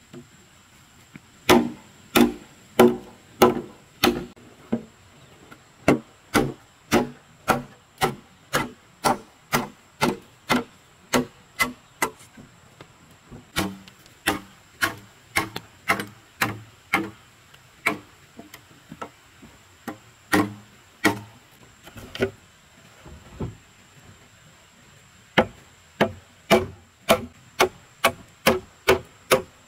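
Machete chopping through a green bamboo pole: sharp strokes, about two a second, in runs with a few short pauses.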